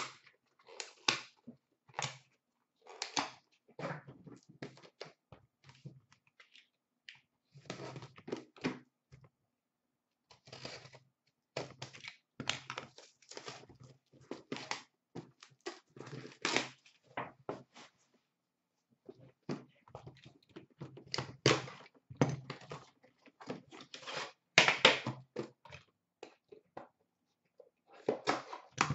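Clear plastic wrapping being torn and crinkled off a sealed hockey card box, with the box and its tin handled, in irregular bursts with a few short pauses.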